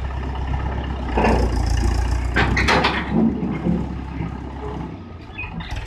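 Mahindra 475 DI tractor's diesel engine running steadily with a low hum, broken by sharp knocks and clatter about a second in and again between two and three seconds in. The engine's low note drops away near the end.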